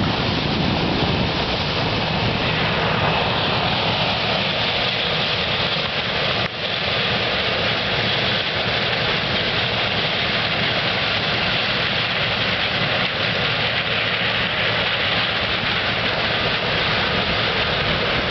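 Combine harvester running steadily in a corn field: a constant loud mechanical drone with a strong hissing whir. There is a brief dip about six and a half seconds in.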